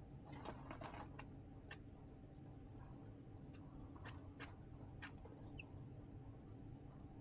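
Baby chicks pecking in a plastic tote brooder: a quick run of faint taps about half a second in, then scattered single taps, with one short faint peep a little over halfway through. A steady low hum sits underneath.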